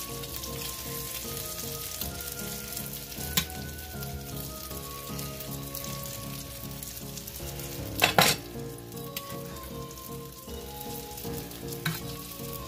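Cauliflower fritters sizzling in hot oil in a cast-iron skillet while a metal spatula scrapes and presses them. There is a loud metal clatter about eight seconds in and a sharp click near the end.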